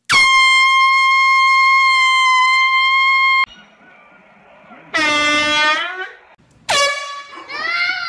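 Handheld air horn blasting one loud, steady, piercing note for about three and a half seconds, cut off abruptly. Shorter wavering high cries follow twice near the end.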